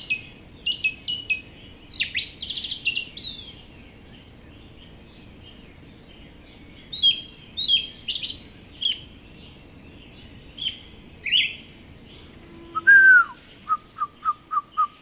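A chorus of birds, many short high chirps, whistles and trills overlapping. About twelve seconds in it gives way to a steady high insect drone, with a single falling whistled call followed by a quick run of short, even whistled notes.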